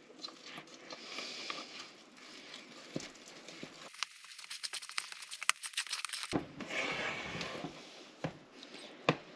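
Wooden spoon stirring sticky sourdough dough of flour, water and starter in a plastic bowl: irregular scraping and wet, sticky squishing, with quick clicks of the spoon against the bowl, densest in the middle.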